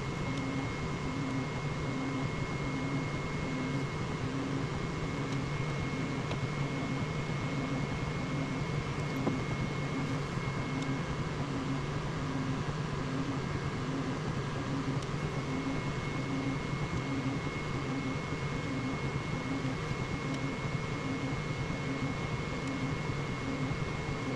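Flashforge Adventurer 5M Pro 3D printer running a print: a steady whir of fans with a thin high whine, over a low motor hum that pulses a little over twice a second.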